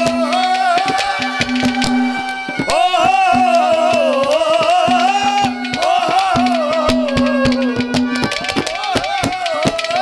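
Live Haryanvi ragni folk music: fast hand-drum strokes under a wavering, pitch-bending melody and a held drone note.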